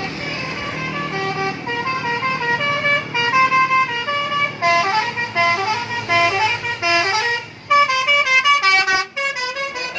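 Bus telolet horn, a multi-note musical air horn, playing a quick tune of short notes stepping up and down several times a second, with a faster run of notes near the end.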